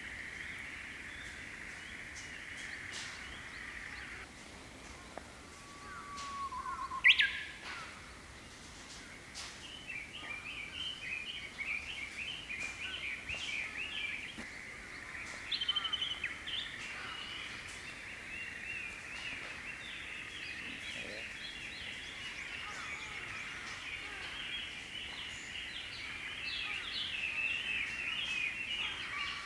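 Japanese bush warbler (Horornis diphone) singing its song once, a long low whistle followed by a quick sharp flourish, about six or seven seconds in. A steady high hiss-like hum and long runs of rapid chirping fill the rest.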